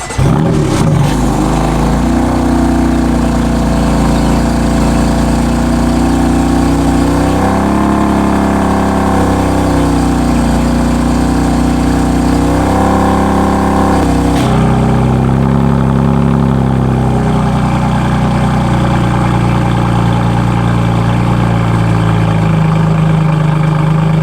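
BMW F82 M4's twin-turbo S55 straight-six, running catless downpipes, cold-starting and settling into a high fast idle with its exhaust valves closed. A little past halfway there is a sudden change to a deeper idle tone as the exhaust valves open.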